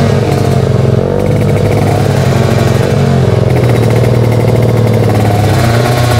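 Motorcycle engine running loud at high revs, its pitch held fairly steady with small rises and dips.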